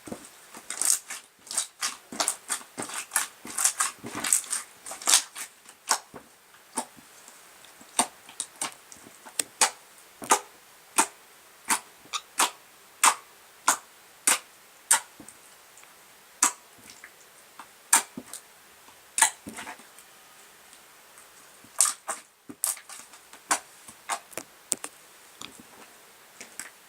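Soft pink slime, softened with hot water, being squeezed and pressed by hand, giving a long run of sharp little pops and clicks. They crowd together in the first few seconds, then come about one or two a second.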